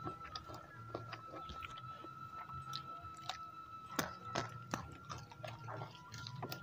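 Close-miked chewing and mouth sounds of people eating fried chicken with their hands, with many sharp irregular clicks and smacks. A thin steady high tone runs underneath.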